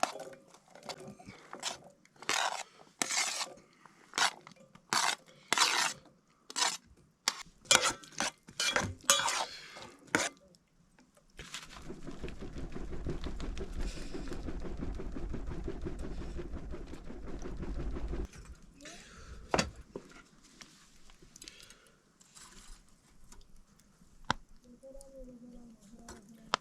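Cooking-pot and utensil handling: a quick run of separate scrapes and clinks, then a steady rushing noise lasting about six seconds that stops sharply, then lighter, fainter handling.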